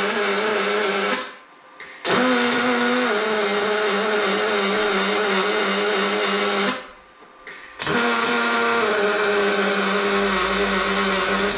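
Pulsed MIG welding arc from a Best Mig 231 4x4 synergic welder in pulse mode, making a steady buzzing hum at a fixed pitch. It lays three short welds: the first cuts off about a second in, the second starts about two seconds in and runs for some four and a half seconds, and the third starts about a second later and is still going at the end.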